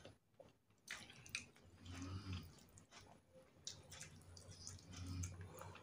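Quiet, wet chewing and mouth clicks while eating rice and rendang, mixed with fingers squishing and scooping rice in a plastic bowl.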